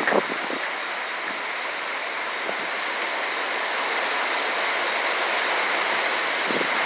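Hurricane-force wind blowing steadily, an unbroken rushing noise that slowly grows louder.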